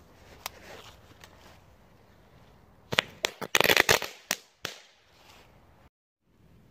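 Small category 1 firework going off on the ground: a few faint pops, then about three seconds in a quick run of sharp crackling cracks lasting under two seconds.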